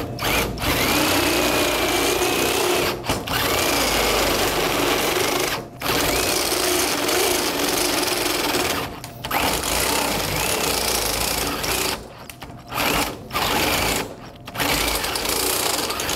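Cordless drill running a Milwaukee step bit through the machine's sheet-steel door, enlarging the hole for the card reader. It goes in several runs of a few seconds each, with brief stops between them.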